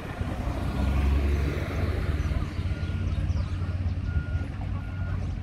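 A large vehicle's engine running with a deep hum that swells about a second in. Short high beeps sound a few times, mostly near the end.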